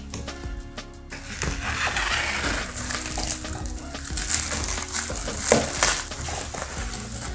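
Scissors cutting through plastic stretch wrap around a cardboard box, the film crinkling and crackling as it is cut and handled. The crinkling starts about a second in, with a sharper crackle later on.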